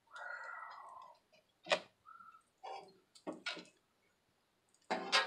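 Metal spatulas clacking and tapping against a steel flat-top griddle plate while an omelet is folded: a short rasping scrape in the first second, then several sharp separate clacks.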